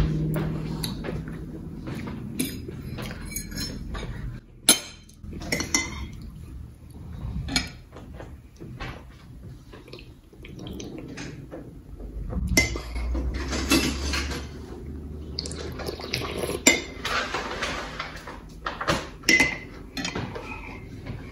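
Cutlery clinking and scraping against a plate in irregular taps through a meal, with a few louder clinks.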